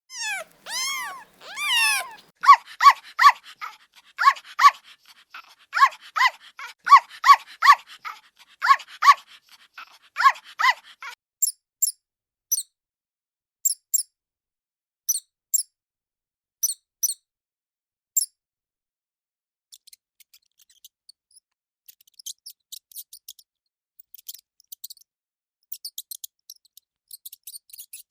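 Animal calls, a dog-like run of short pitched barks or yelps for roughly the first ten seconds, opening with three long rising-and-falling calls. From about eleven seconds in they give way to much higher, thin squeaks and chirps, which grow fainter near the end.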